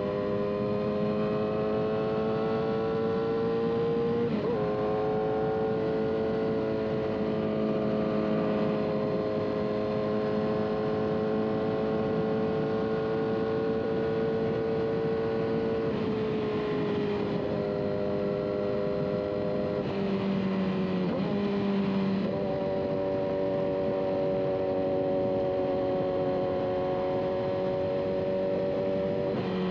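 Motorcycle engine running steadily while riding, its pitch dipping and stepping to a new level a few times, with a steady rushing noise underneath.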